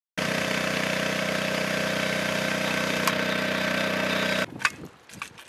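A steady engine running, a constant hum of several tones over a hiss, which cuts off abruptly about four and a half seconds in; a few faint clicks follow near the end.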